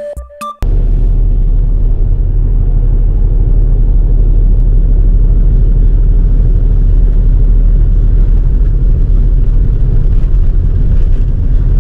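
A car driving on an icy, snow-covered road: a loud, steady low rumble of road and engine noise. A burst of electronic music with drum hits cuts off under a second in, just before the rumble begins.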